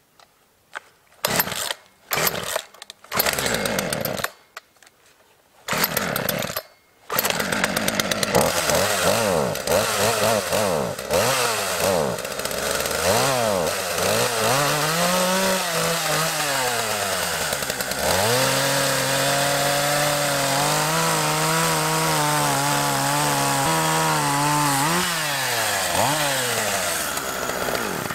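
Two-stroke gas chainsaw being pull-started: several short sputtering bursts in the first seven seconds before it catches and keeps running. It revs up and down, holds a steady pitch for several seconds, revs again, and stops suddenly at the end.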